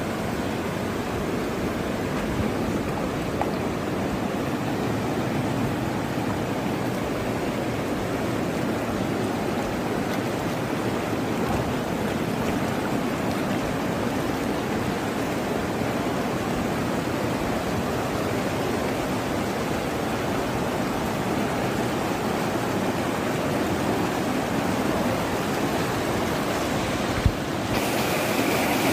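Steady rushing of a swollen, muddy river in flood, with a single short click near the end.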